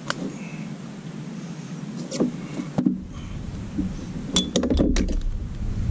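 Sharp metallic clicks and clinks of fishing pliers and a jig hook being handled while unhooking a fish. A quick cluster of clinks comes near the end over a low rumble.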